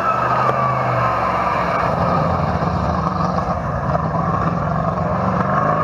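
Truck engine running steadily, with a whine that sinks slowly in pitch. It is the engine sound given to a toy racing truck.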